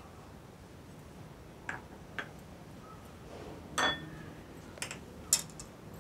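A few separate metallic clinks of a spoon against a steel pot, the loudest one about four seconds in with a short ring.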